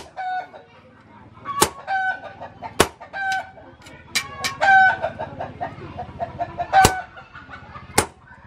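Sledgehammer blows striking a hot chisel held in tongs on an anvil, cutting red-hot chainsaw bar steel: about five sharp metallic strikes at uneven intervals, with short pitched calls between them.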